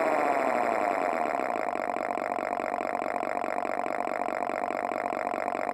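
Simulated Dodge Viper V10 engine sound with an odd, bank-by-bank firing order (all five cylinders of one bank, then all five of the other). The revs fall back over the first second and a half, then it idles with a steady rhythmic pulse.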